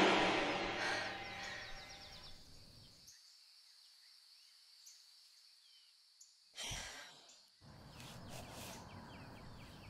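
Dark horror score fading away over the first three seconds into near silence. About six and a half seconds in comes a woman's short, sharp breath, then faint heavy breathing.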